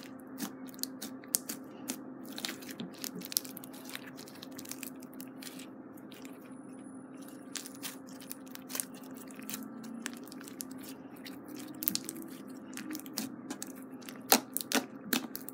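Hands kneading and squeezing a fluffy white slime mixed with small coloured bits, giving a steady stream of crackling clicks and small pops, with a few louder, sharper pops near the end. A faint steady hum runs underneath.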